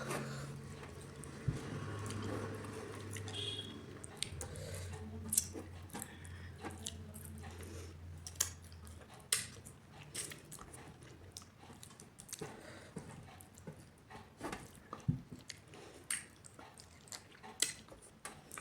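Close-miked chewing and biting of food, with irregular wet clicks and small crunches from the mouth. A low steady hum sits underneath for roughly the first half.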